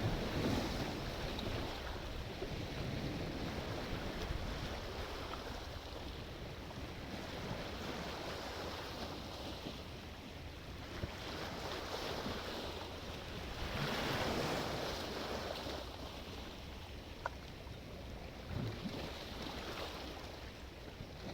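Sea waves breaking and washing in, a steady surf that swells loudest near the start and again about fourteen seconds in. A single brief click sounds about seventeen seconds in.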